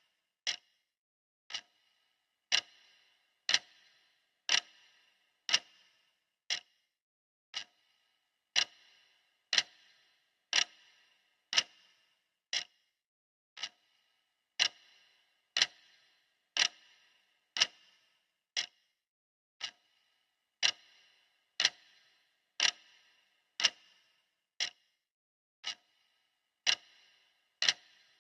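Clock ticking, one sharp tick about every second, each with a brief ring.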